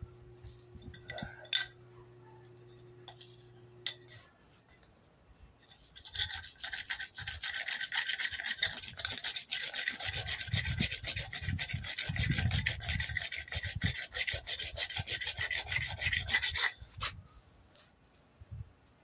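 A friction fire roll being rolled rapidly back and forth under a wooden board against concrete. A dense, rasping scrub starts about six seconds in, runs for about ten seconds and stops abruptly. The friction is meant to heat the tinder roll until it smoulders.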